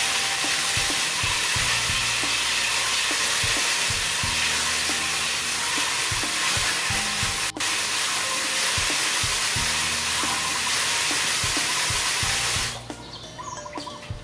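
A fine spray of water from a PVC pipe outlet hissing steadily into a water-filled aluminium basin, with hands rinsing under it. It breaks off for an instant around the middle, and the spray cuts off near the end.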